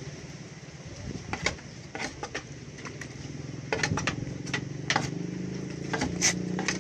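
Etawah goat kid sucking milk from a plastic feeding bottle's teat, with a scatter of short sharp smacking clicks. A steady low engine-like hum runs underneath.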